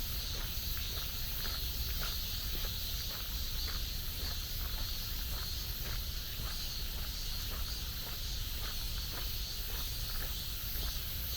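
Footsteps walking at a steady pace, about two steps a second, over a steady high-pitched insect chorus.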